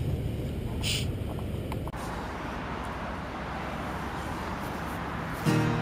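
Steady wind rumble and outdoor noise on a camera microphone. Guitar music starts just before the end.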